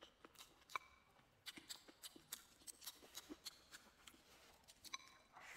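Faint eating sounds: chewing, with a scatter of small, irregular clicks and smacks.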